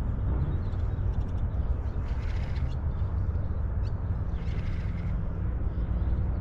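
Wind noise on the microphone, a steady low rumble, with three short harsh calls spaced a couple of seconds apart.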